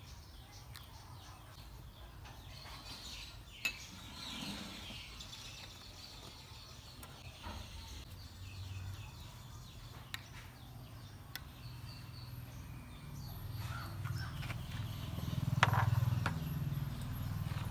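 Garden ambience with faint birds chirping over a low steady hum, and a few light clicks of glassware and utensils being set down. The loudest click comes near the end, as a metal mesh strainer is set on a glass mug.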